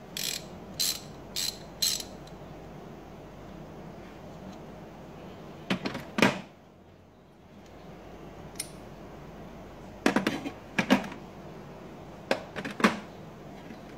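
Channellock 3/8-inch drive ratchet clicking in four short bursts, about half a second apart, as the handle is swung back and forth. Then chrome sockets, extension and ratchet clink and knock a few times as they are pulled apart and set back into the metal case.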